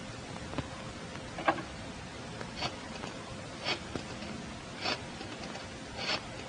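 Steady hiss of an old 1940s film soundtrack, with a short click about once a second.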